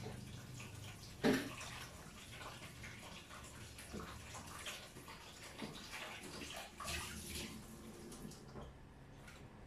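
Water running from a tap and splashing as someone washes at a sink, with a sharp knock about a second in and a few small clicks.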